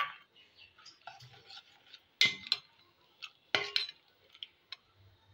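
Steel spoon stirring crushed nuts into a thick mango-milk mixture in a steel pot, clinking against the pot now and then. The two loudest clinks come about two and three and a half seconds in.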